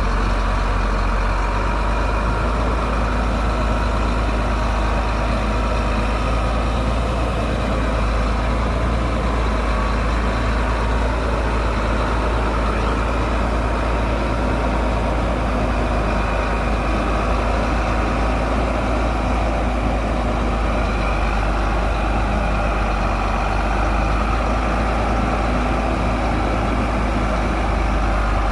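Heavy diesel engine of a SHANTUI bulldozer running at a steady, even speed, deep and continuous.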